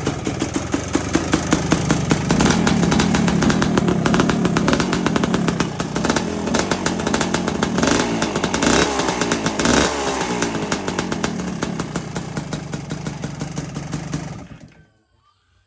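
Kawasaki KDX250's two-stroke single-cylinder engine running with a buzzing exhaust, revved up and down several times in the middle. It drops away and stops suddenly near the end.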